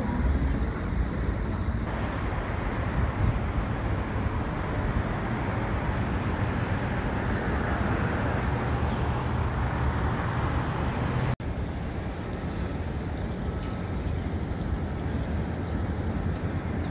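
A freight train of autorack cars rolling past, a steady low rumble of wheels on rail. It cuts out for an instant about 11 seconds in and resumes.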